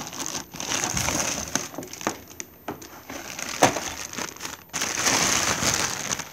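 Thin plastic packaging bag rustling and crinkling as it is handled and pulled off a new vacuum cleaner, with a few sharp knocks and clicks. The rustling gets louder about five seconds in.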